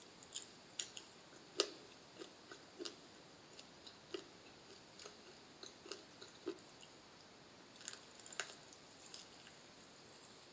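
Close-miked eating sounds of a person biting and chewing whole cooked snake: faint, irregular crunches and wet clicks, a few of them sharper and louder.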